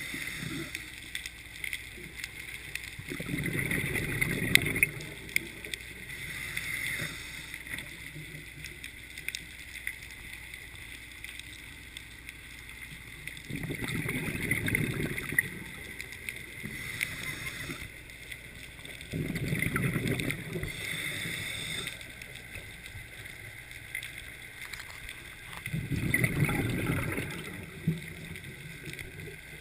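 Scuba diver breathing through a regulator, heard underwater: four long gurgling rushes of exhaled bubbles spaced several seconds apart, with faint hiss and small clicks between breaths.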